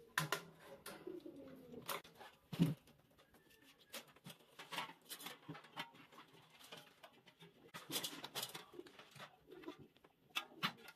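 Light clicks, knocks and rattles of a screwdriver and a wire fan guard as an old pedestal fan is taken apart: the spinner unscrewed, the guard unclipped and the blade lifted off.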